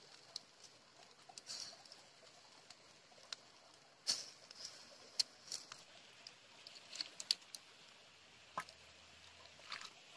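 Irregular sharp crackles and pops over a light hiss from a wood-ember fire under a whole chicken roasting on a wooden spit while it is basted with masala.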